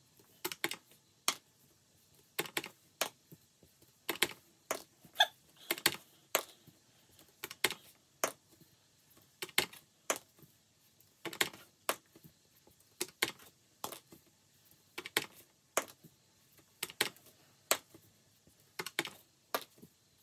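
A single die rolled again and again onto a hard tabletop, each roll a short clatter of sharp clicks, one or two rolls a second.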